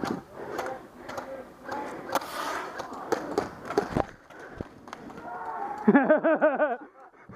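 Sharp airsoft gun snaps among indistinct voices, then a wavering, warbling cry lasting about a second near the end.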